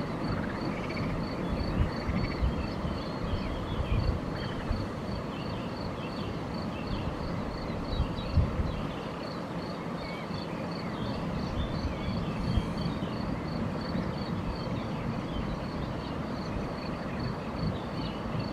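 Outdoor riverbank ambience: a steady low rumble of wind on the microphone with a few short bumps, under a high, even chirping pulse at about three a second and scattered faint bird chirps.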